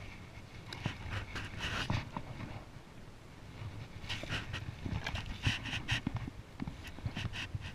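A wet rope being hauled in hand over hand on a kayak, in short hissing, rustling bursts that come in two spells, about a second in and again from about four seconds.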